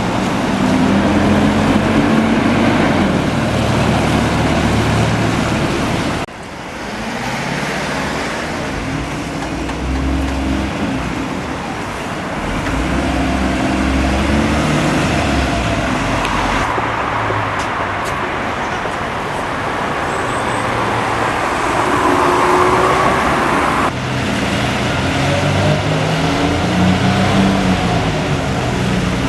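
Road traffic: large vehicle engines running and moving off, their pitch rising and falling over steady road noise. The sound changes abruptly about six seconds in and again near the end.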